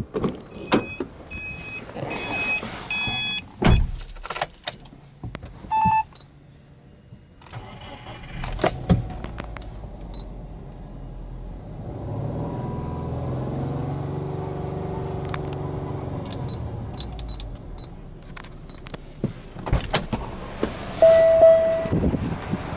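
Subaru Forester XT's turbocharged flat-four engine starting, running, then revved once in a smooth rise and fall of pitch. Before it come a string of evenly spaced electronic warning beeps and a single door thump. Near the end there are clicks and a short chime.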